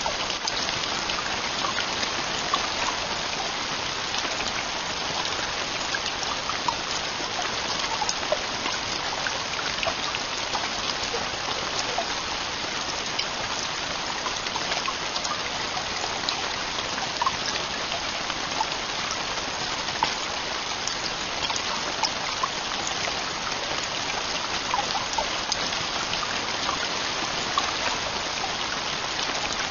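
Heavy rain on a tent roof, falling steadily, with scattered louder drop ticks.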